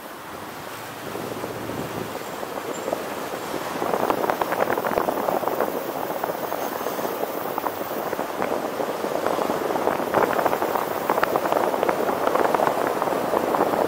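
Road and wind noise of a moving vehicle, a steady rushing with many small crackles, growing louder about four seconds in.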